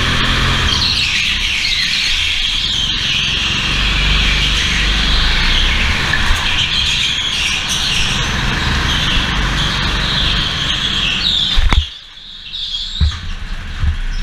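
Racing go-kart at speed on a slick indoor track: a low engine and wind rumble under tyres squealing through the corners in a wavering high screech. About twelve seconds in there is a sharp knock, the squeal stops and the sound drops abruptly, with a few bumps after.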